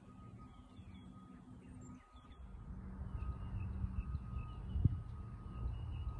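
Small birds chirping in the background over a low rumble that grows louder about two seconds in, with one soft thump about five seconds in.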